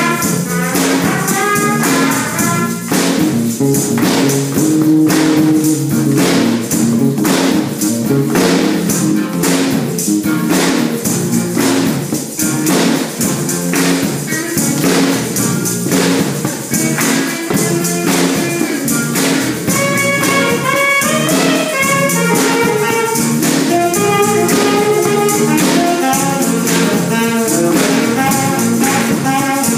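A band playing: wind and brass instruments carry a melody over drums and percussion with a steady beat.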